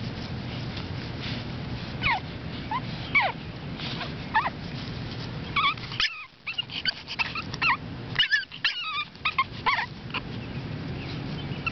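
Seven-week-old Boston Terrier puppies whining and whimpering: a string of short, high-pitched whines with sliding pitch, scattered at first and coming thick and fast in the second half.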